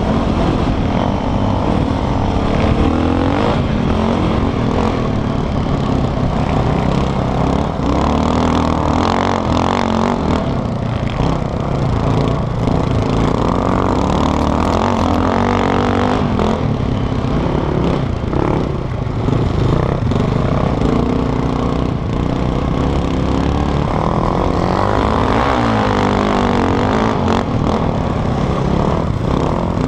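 A quad's engine running hard, heard on board the riding machine, its revs repeatedly rising and falling as it accelerates and backs off through the track's bends.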